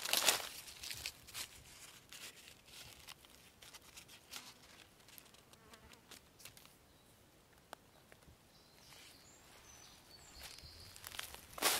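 Rustling, crunching steps through forest undergrowth, loudest in the first second or so and again near the end, with quieter scattered crackles in between.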